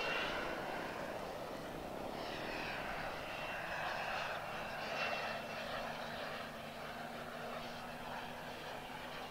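Radio-controlled model Embraer EMB 312 Tucano turboprop aircraft flying overhead, the turbine engines and propellers giving a steady whine that slowly gets a little quieter.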